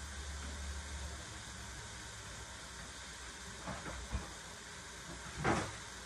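Shredded cabbage sizzling and steaming in a pot on the stove, a steady hiss, with two faint knocks around four seconds in and a louder brief thump about five and a half seconds in.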